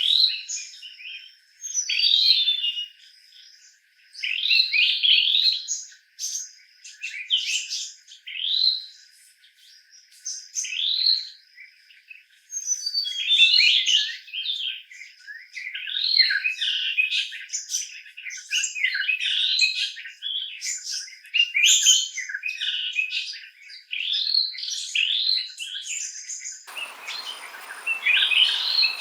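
Songbirds chirping and singing in short, repeated phrases, several calls overlapping. Near the end a steady hiss of insects sets in beneath them.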